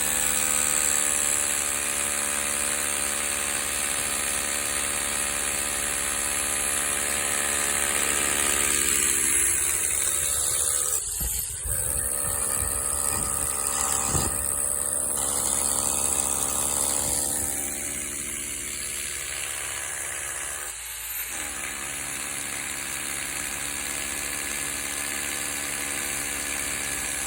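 Hammer drill with a 5/8 inch bit drilling into a concrete slab, its motor running steadily, with brief let-ups about a third and two thirds of the way through.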